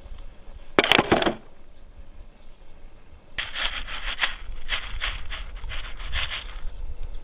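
Hand cutting during the trap build: one short rasping stroke about a second in, then a run of about ten quick rasping strokes, about three a second, lasting some three seconds.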